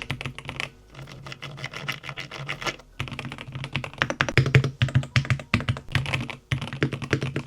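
Lemokey P1 HE keyboard with Hall effect magnetic switches in an aluminium case being typed on quickly: a dense run of keystroke clacks, broken by short pauses about a second in, near three seconds and about six and a half seconds in.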